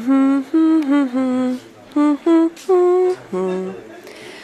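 A person humming a tune with the mouth, in about eight short separate notes that step up and down in pitch.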